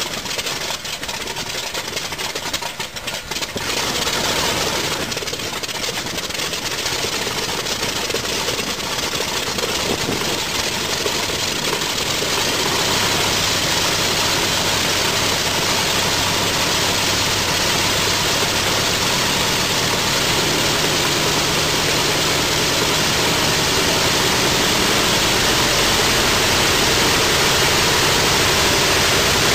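Pratt & Whitney R-4360 Wasp Major 28-cylinder radial aircraft engine running on a test stand, its propeller turning. It runs rough and uneven for the first few seconds, then settles into a steady drone that grows slightly louder.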